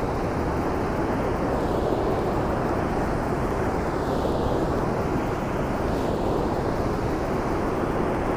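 Steady rushing noise of water running through the dam, with wind on the microphone.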